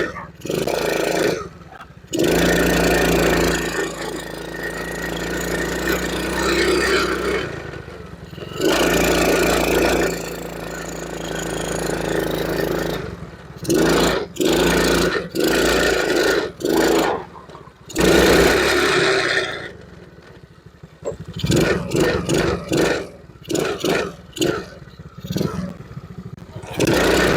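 The small four-stroke single-cylinder engine of a Tao-Tao 100cc ATV running and revving up in stretches of a few seconds, dropping back between them, as the quad is ridden. It runs cleanly now that its clogged carburettor jet has been cleared.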